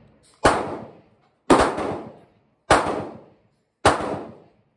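Four gunshots about a second apart, each a sharp crack followed by a long echoing decay under a covered range's roof. They are fired on the range, not from the AR-15 pistol being held.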